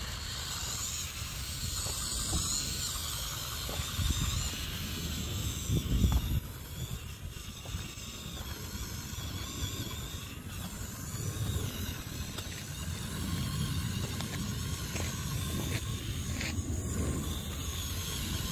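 Small electric drivetrain of a 1/12-scale FMS Willys MB RC scaler whining as it drives over sand and dirt, with the tyres crunching, under a low rumble and hiss.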